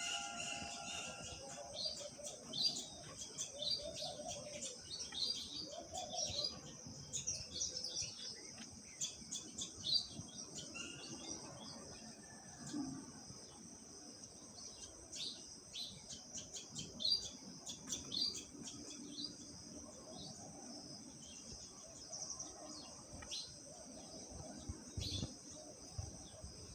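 Birds chirping: many short, sharp chirps at irregular intervals over a steady high-pitched hiss, with a few lower calls in the first several seconds.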